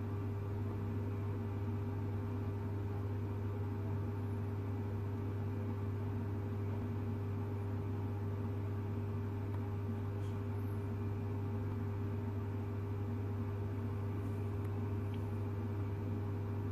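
A steady low electrical-sounding hum with a fainter higher tone and background hiss, unchanging throughout.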